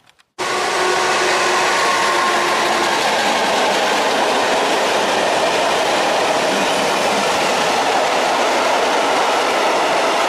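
Freight train of open coal wagons, hauled by a Siemens Vectron electric locomotive, passing fast and close: a loud, steady rush of wagon wheels on the rails that starts abruptly about half a second in.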